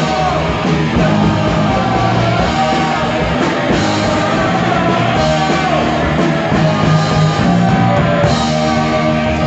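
Punk rock band playing live, with electric guitars and a drum kit and a man singing into the microphone.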